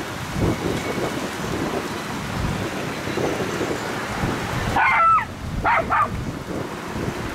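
Wind buffeting the microphone, a steady rumble and hiss. About five seconds in, a dog barks three times.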